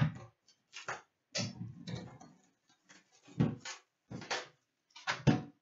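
Plastic shrink wrap crinkling and tearing in short bursts as it is stripped off a metal 2017-18 Upper Deck Series Two hockey card tin, with a few knocks of the tin being handled on a glass counter.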